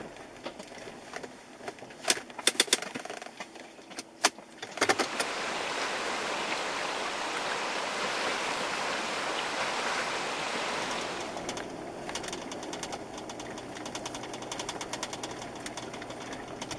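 A vehicle driving slowly along a rough dirt forest track, with sharp knocks and rattles. About five seconds in, the steady rush of a shallow river running over stones takes over for several seconds. Then the vehicle is back, with a fast ticking crunch over a low engine hum.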